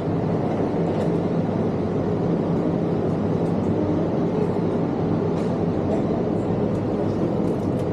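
Steady hum and hiss of a convenience store's refrigerated display cases and ventilation, an even low drone with a faint steady hum in it.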